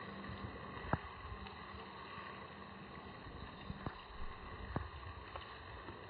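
Steady rush of turbulent river water, with three short clicks, the loudest about a second in.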